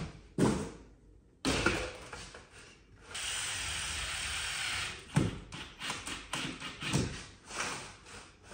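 Cordless drill running steadily for about two seconds, boring a hole into the wall to hang a whiteboard, starting about three seconds in. Several sharp knocks and clunks come before and after it.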